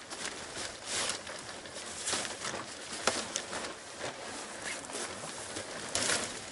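Pop-up tent fabric rustling and swishing as the tent is handled and unfolded, with a few sharper swishes about a second in, around three seconds in, and near the end.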